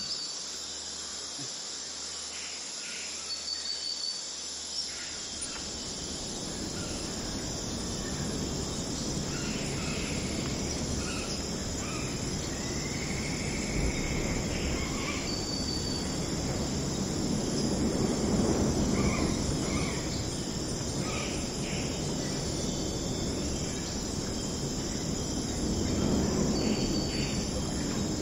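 Insects trilling steadily and high, with a few short bird chirps. A low, noisy rumble grows louder from a few seconds in.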